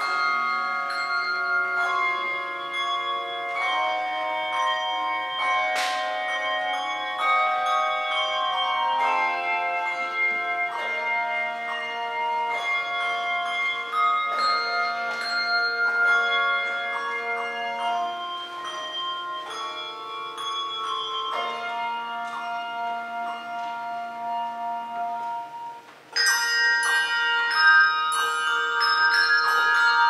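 Handbell choir playing: chords of ringing handbells that hold and overlap, changing every second or so. About 26 seconds in, after a brief break, the playing comes back louder and brighter, with many bells struck together.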